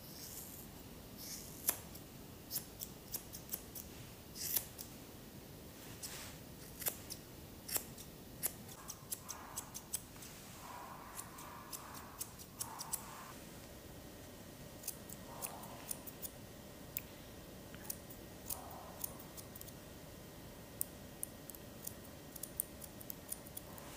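Grooming scissors snipping through a poodle's curly coat, many quick, irregular snips.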